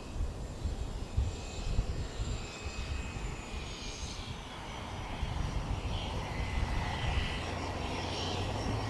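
Pratt & Whitney PT6A turboprop of a Cessna 208B Grand Caravan running as the aircraft rolls along the runway. It gives a steady hum with a thin whine, and it grows louder in the second half.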